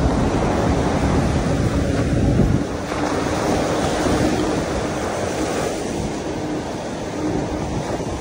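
Wind rushing and buffeting the microphone during a fast e-bike ride, with a faint steady hum underneath; the rush eases a little about two and a half seconds in.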